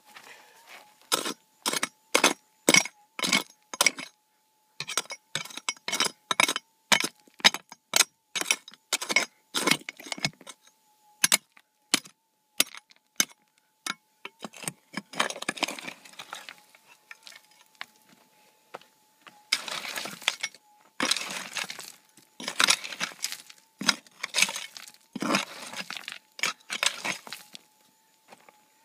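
Prospecting pick striking rock and bedrock in a run of sharp, separate blows, roughly one to two a second, then scraping and raking through gravel and dirt in longer strokes from about halfway, digging down to a detector target. A metal detector's faint, steady threshold tone hums underneath.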